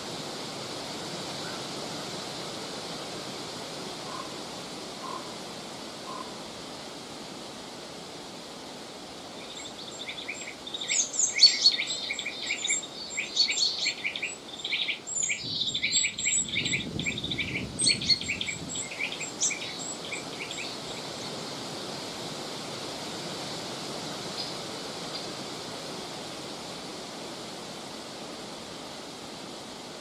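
A flurry of many short, high bird chirps, lasting about ten seconds in the middle, over a steady rush of wind in the forest trees.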